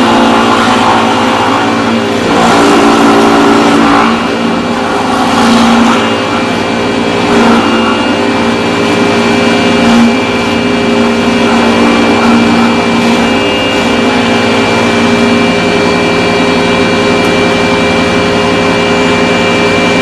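A power carving tool's motor running steadily while it cuts into timber, with the cutting noise swelling and easing several times in the first half.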